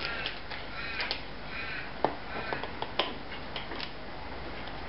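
A crow cawing several times in short calls, with a few sharp clicks from handling the power aerial unit, the loudest about two and three seconds in.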